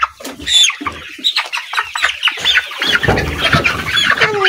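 Young chickens peeping in rapid, high-pitched calls, many overlapping, with a brief low rumble about three seconds in.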